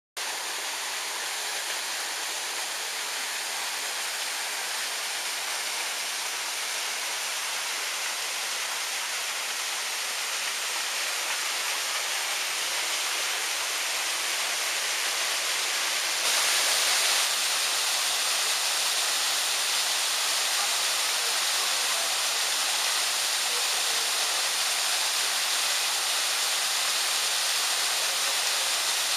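Small waterfall pouring over rocks: a steady rush of falling water that grows a little louder about halfway through.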